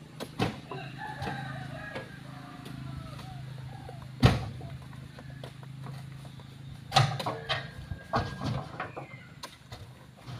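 Heavy oil palm fruit bunches knocking and thudding as they are tossed up onto a truck bed, several separate impacts, the loudest about four seconds in and a quick run of them around seven to nine seconds. A low steady hum lies under the first part.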